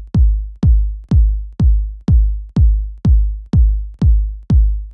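Electronic kick drum playing alone in a steady four-on-the-floor beat, about two hits a second, each hit with a long low tail: the bare kick that opens a house track.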